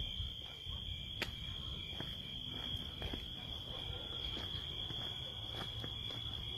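Night insects trilling as one steady high-pitched tone, over faint low rustling and scattered light clicks from footsteps and phone handling. The trill cuts off suddenly at the end.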